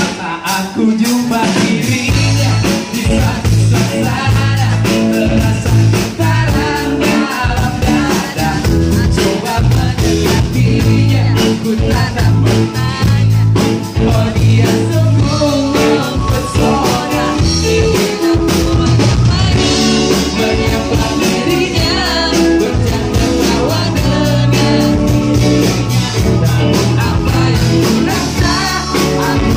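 Live pop-rock band playing at full volume: a male lead vocalist singing over electric guitar, electric bass and a drum kit.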